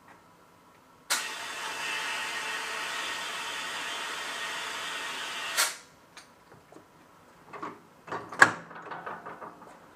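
Tire-changing machine running steadily for about four and a half seconds, likely its turntable motor turning the wheel as the tire is worked onto the rim, then stopping abruptly. A few sharp metal clunks follow from the tools and wheel.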